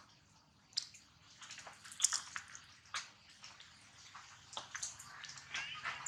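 Light, irregular splashing and dripping of water, made up of scattered small clicks and splashes.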